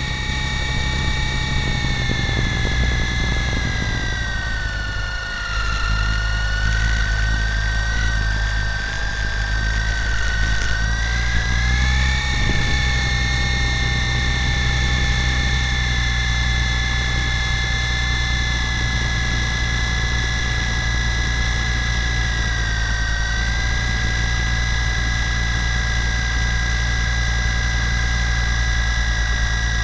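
Lama V4 coaxial RC helicopter's electric motors and gear drive whining steadily in flight, heard from a camera mounted on the helicopter, over a heavy low rumble. The whine sags in pitch about four seconds in and climbs back by about twelve seconds as the throttle changes.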